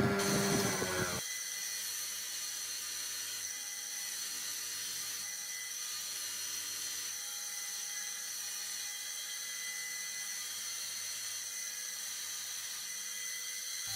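A small high-speed power tool whirring steadily with a high whine. A louder, deeper running sound cuts off about a second in.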